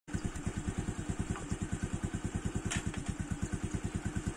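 Motorcycle engine idling with a rapid, even beat, with a light click partway through.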